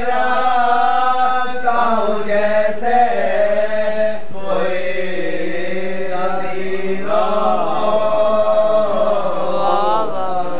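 Several men's voices reciting a salam, a Shia devotional chant for Muharram, with one leading and the others joining in long, held, wavering notes.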